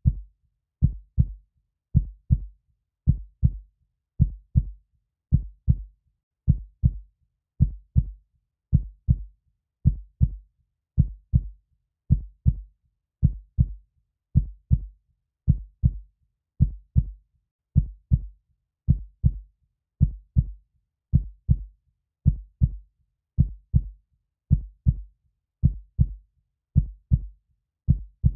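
Heartbeat: a slow, even double thump (lub-dub), about one beat a second, the first thump of each pair louder, with silence between beats.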